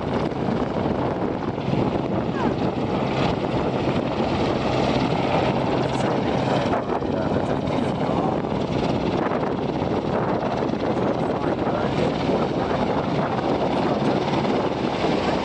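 Royal Navy AgustaWestland AW101 Merlin helicopter flying low past, its three turboshaft engines and main rotor making a steady, unbroken noise.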